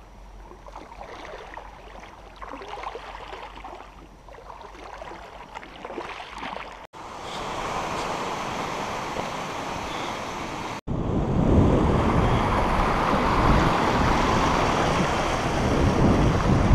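Running water of a shallow river with small splashes as someone wades through it. After two abrupt cuts, steady wind noise takes over, getting louder and heavier in the lows over the last six seconds as wind buffets the microphone.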